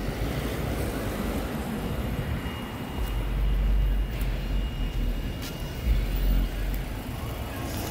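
A car running on the road close by, its engine and tyres giving a steady noise, with heavier low rumbles about three seconds in and again around six seconds.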